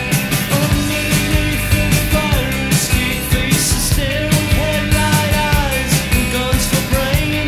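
A rock song with a steady drum beat and a singing voice, played from a vinyl record on a Crosley Revolution CR6002A portable turntable.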